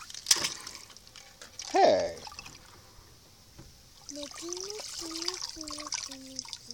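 Water in a shallow plastic kiddie pool trickling and splashing. A short sharp falling squeal comes about two seconds in, and a short tune of steady stepped notes plays through the last couple of seconds.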